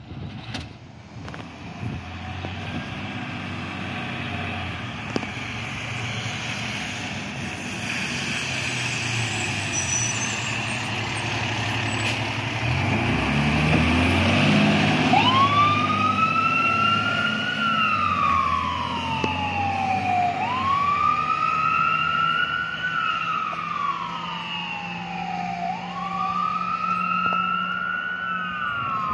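Fire engine pulling away on an emergency call: its engine builds up and is loudest as the truck passes close by. About halfway through, its siren starts wailing, each cycle rising quickly and then falling slowly, repeating about every five seconds.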